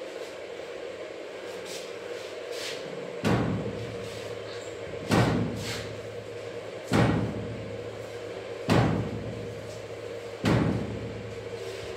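Five heavy knocks about two seconds apart, each with a short ringing tail, over a steady low hum.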